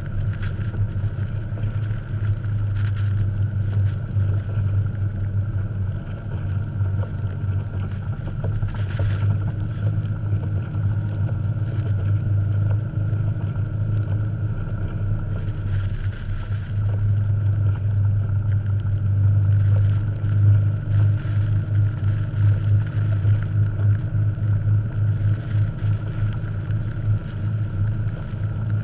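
1989 Jeep Cherokee XJ's engine running steadily as the Jeep ploughs through deep snow, its low drone swelling louder for a few seconds past the middle.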